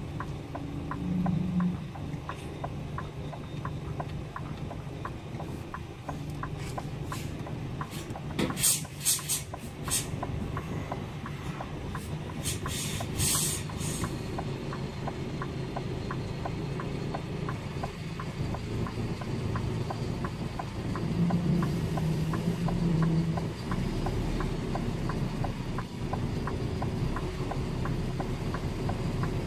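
Delivery lorry's diesel engine running steadily as the lorry is manoeuvred slowly, with a regular ticking throughout. There are two short bursts of hiss, about nine and thirteen seconds in.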